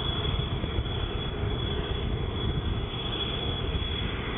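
Jet engines of an Airbus A380-861, four Engine Alliance GP7200 turbofans, running as the airliner moves along the runway: a steady low rumble with a thin, even high whine over it.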